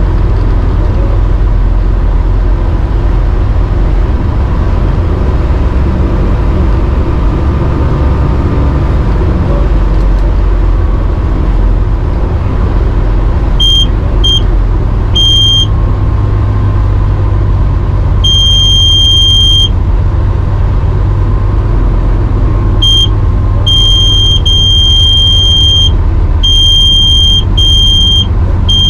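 A light aircraft's engine and propeller drone steadily in the cabin. From about halfway in, as the plane touches down and rolls along the runway, a high steady warning tone keeps cutting in and out in short and longer stretches: the stall warning horn, sounding as the wing nears the stall in the landing flare.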